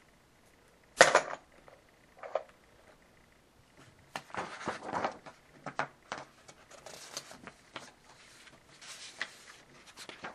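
Objects being handled on a tabletop: a sharp knock about a second in, then scattered light clicks and rustling.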